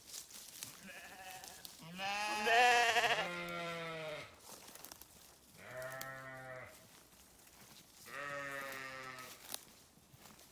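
Sheep bleating: a faint call, then a long loud bleat about two seconds in, then two shorter bleats, with light clicks and rustles between the calls.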